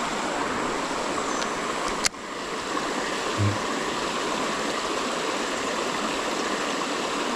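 Creek water running, a steady rushing. A single sharp click about two seconds in.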